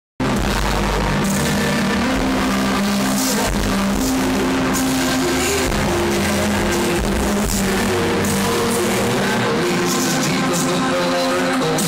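Rock band playing live in an arena, heard loud through a phone's microphone, with held bass and guitar notes under repeated drum hits. The sound cuts in suddenly right at the start.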